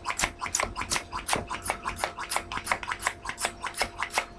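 Plastic balloon hand pump being worked fast on a twisting balloon: a quick run of short scratchy strokes, about five or six a second.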